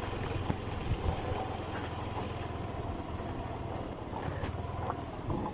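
Motor scooter engine running steadily while the scooter is ridden.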